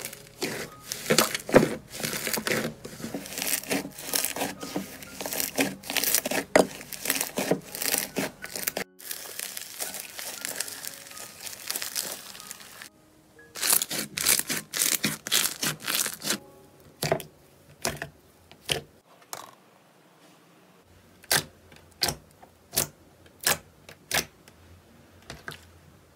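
Hands squeezing and kneading thick slime, a dense run of crackles and pops as trapped air is forced out. After a quieter stretch the crackling returns, and near the end it gives way to separate sharp pops a little over half a second apart.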